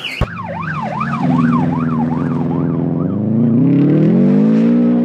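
A siren wailing up and down about twice a second and fading away over the first three seconds, over a vehicle engine. The engine rises in pitch and runs loud near the end as the rally car runs off the road.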